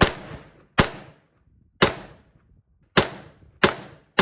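Gunshots from a semi-automatic firearm: about six shots spaced well under a second to about a second apart, each sharp crack followed by a short echo.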